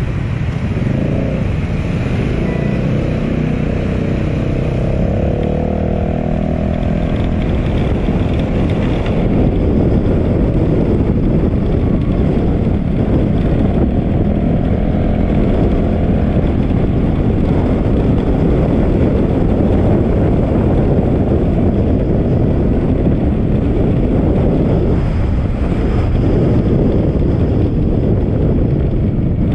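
Motor scooter engines pulling away from a stop in traffic, their pitch rising. About nine seconds in the sound changes abruptly to a steady, loud rush of engine and wind noise while riding along.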